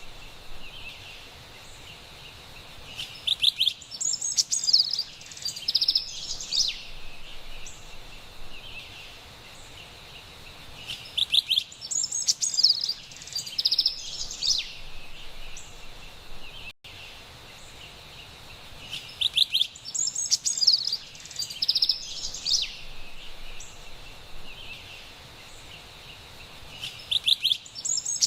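A Carolina wren singing loud bouts of rapid song phrases, each about three seconds long and coming roughly every eight seconds, over a steady high background hiss. There is a momentary dropout a little past the middle.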